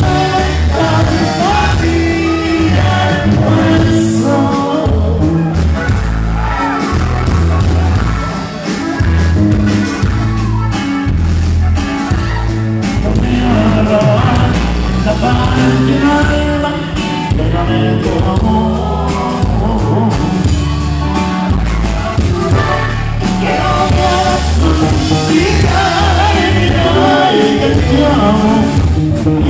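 Live norteño band playing: accordion, guitar and bass over a steady beat, with a man singing into the microphone, heard loud from the audience in a large hall.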